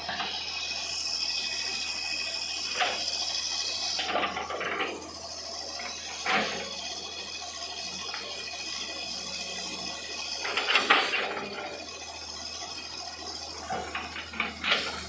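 Hitachi excavator working: a steady engine and hydraulic hiss with held tones, broken by sharp knocks or cracks about five times, the loudest one near the middle.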